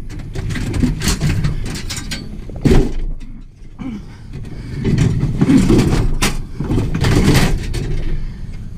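Scrap metal being handled and shifted about: irregular clanks, knocks and scrapes, with a brief lull about three and a half seconds in.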